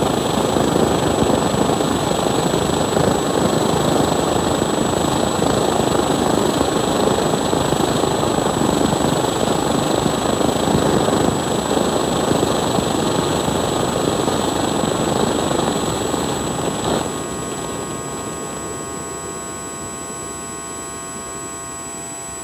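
Homemade 3D-printed jet engine running, a loud steady roar of burning fuel with a high thin whine over it. About 17 s in the combustion stops and the roar drops away, leaving a quieter steady electric buzz that slowly fades as the engine winds down.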